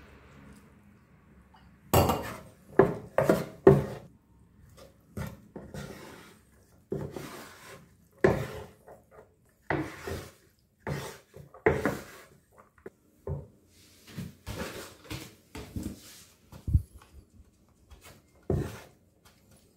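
Wooden rice paddle cutting and turning vinegared sushi rice in a wooden sushi tub (hangiri): a run of irregular scraping strokes and knocks of wood on wood, the sharpest knocks a couple of seconds in. This is the stage of mixing the vinegar into the rice for sushi.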